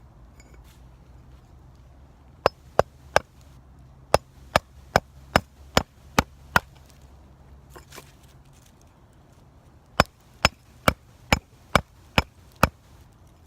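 A new ironwood handle being pounded into the eye of a hatchet head: sharp, evenly spaced knocks, about two and a half a second. A run of ten comes about two seconds in, then a pause of about three seconds, then seven more.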